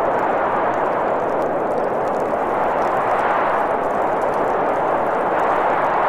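Blizzard wind blowing hard and steadily, a dense whooshing that swells a little about halfway through.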